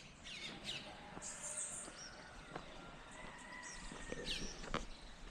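Faint birds chirping, short sweeping calls scattered through quiet background noise, with a couple of sharp clicks about halfway through and near the end.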